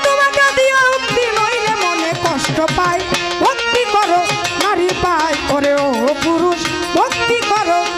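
Violin playing a baul folk melody with sliding, wavering notes over steady hand-drum strokes, an instrumental passage of Bengali folk music.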